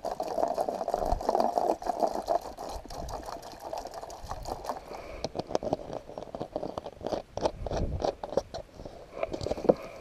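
Plastic water bottle being handled and its screw cap twisted open, the thin plastic giving many short crackling clicks in the second half. A steady rustling noise fills the first couple of seconds.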